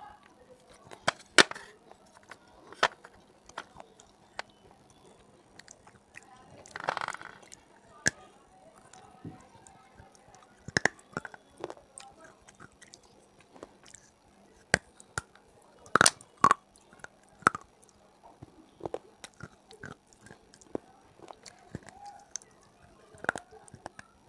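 Hard baked clay being bitten and chewed: irregular sudden cracks and crunches, a second or so apart, with a longer grinding crunch about seven seconds in and a cluster of the loudest cracks later on.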